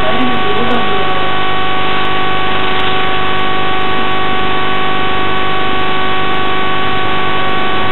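Loud steady hiss and hum with a few fixed whining tones, unchanging throughout.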